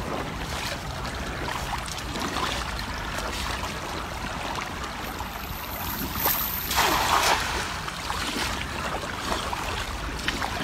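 Steady rush of shallow river water, with a splash about two-thirds of the way through as a thrown cast net lands on the water.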